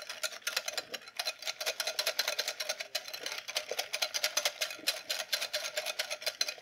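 Wire whisk beating a thick pumpkin custard mixture in a large glass measuring bowl: rapid, steady clicking of the wires against the glass.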